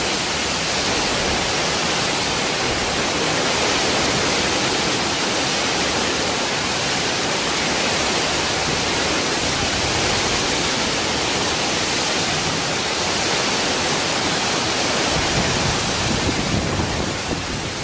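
Torrential rain falling in a steady, dense hiss.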